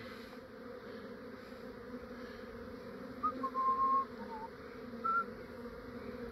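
Steady hum of a honey bee swarm on the move into a swarm trap box. A few short whistled notes come about three to five seconds in.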